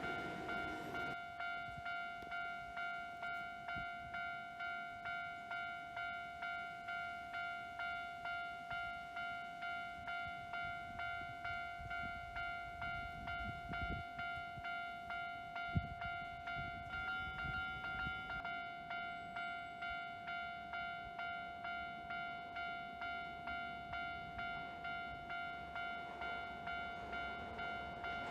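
Japanese railway level-crossing warning bell ringing, an electronic ding repeating steadily about one and a half times a second. A passing train's noise fades out about a second in, and there is a single sharp knock about halfway through.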